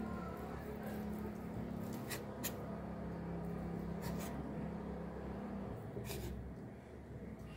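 Kitchen knife cutting through a steamed banana sponge cake on a bamboo cutting board, with four short taps as the blade meets the board, over a steady low hum.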